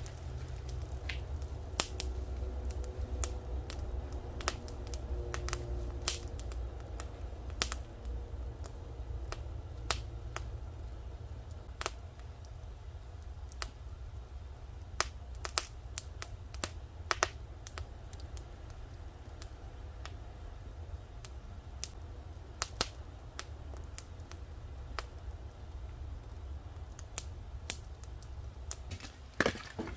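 Wood fire crackling, with sharp irregular pops a second or two apart over a low steady rumble.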